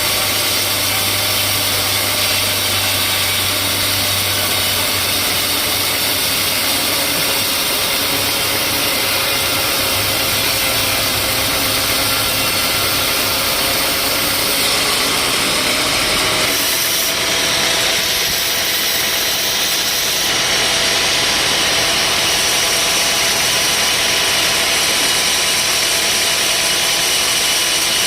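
Sawmill machinery running steadily: a loud, even engine drone with a steady whine, its tone shifting slightly about sixteen seconds in.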